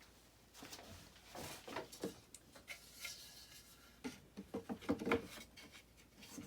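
Light knocks and rubbing of wooden window-frame pieces being handled, with a cluster of knocks about four to five seconds in.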